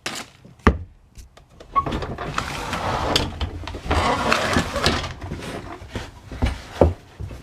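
Two sharp clicks, then a few seconds of busy rustling and pouring noise as engine oil is added from a bottle through a funnel into the pressure washer's oil fill.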